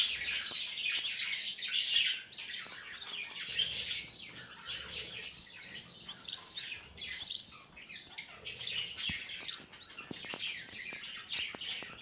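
Bengalese finches (society finches) in a cage chirping with many short, high calls, busiest in the first two seconds, with a few faint clicks among them.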